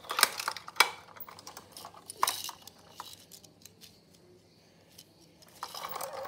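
Sharp clicks and clacks of small toy vehicles knocking on a ceramic tile floor, a few scattered knocks, then a denser rolling, clattering noise near the end as a plastic toy garbage truck is pushed across the tiles.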